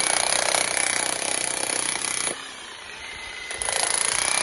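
Makita HM1214C SDS-MAX electric demolition hammer chiselling concrete with rapid blows. It stops a little over two seconds in and starts hammering again about a second and a half later.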